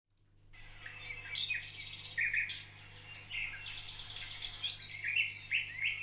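Several songbirds singing at once, a chorus of overlapping chirps and quick trills with a faint steady low hum underneath.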